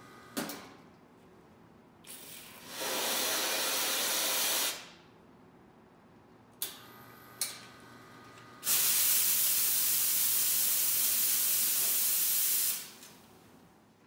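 Commercial espresso machine's steam wand opened and blowing steam in two hissing blasts: a shorter one of about two seconds, then a louder one of about four seconds starting near the middle. A few sharp clicks come from the valve before each blast.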